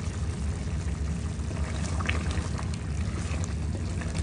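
Mutton vindaloo simmering in an open clay pot: a steady low rumble with bubbling and a few scattered clicks, and a wooden spoon stirring through the thick gravy near the end.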